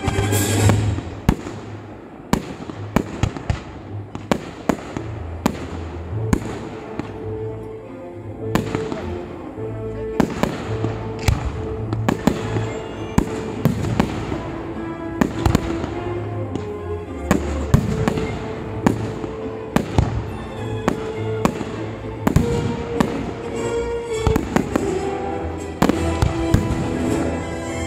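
Fireworks display: aerial shells bursting in a steady stream of sharp bangs, sometimes several in quick succession, over music.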